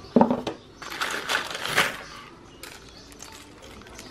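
A brief voice sound at the start, then about a second of rustling and light clattering from things being handled, fading to a quieter stretch.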